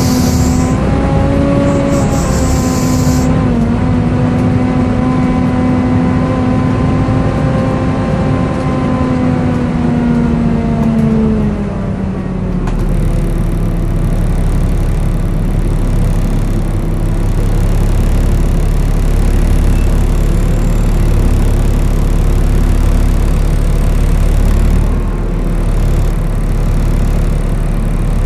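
Volvo B7TL double-deck bus engine running with the loud, screechy whine of its engine cooling fan, known as the 'hoover'. The whine holds steady, then glides down in pitch about ten to twelve seconds in, leaving the engine's lower, steady running.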